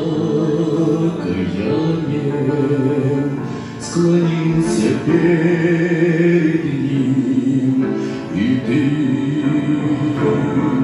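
Music: a Christian hymn with long held notes, sung with accompaniment.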